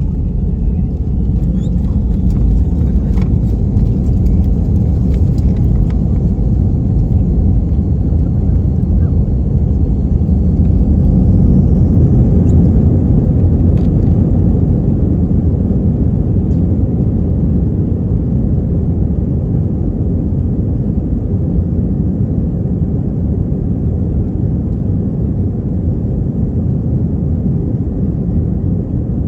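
Steady, loud low rumble of an Airbus A320 heard from inside the cabin: engine and airflow noise. It swells slightly about ten seconds in, with a faint rising whine.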